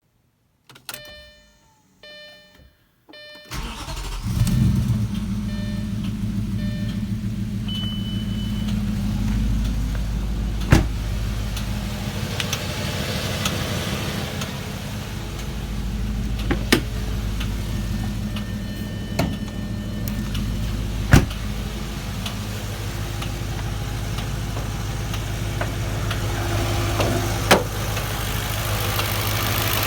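Dashboard warning chimes beeping, then the Audi B6 S4's 4.2-litre V8 starting about three and a half seconds in, flaring briefly and settling into a steady idle, with a few sharp clicks at uneven intervals. The engine carries the ticking noise that the owner wants diagnosed.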